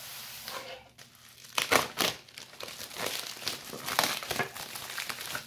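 Packaging being crinkled and torn open by hand, irregular rustling with two louder rips just under two seconds in.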